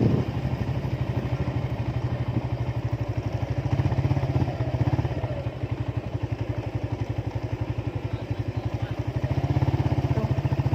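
Motorcycle engine running at low revs with a steady, rapid pulsing beat.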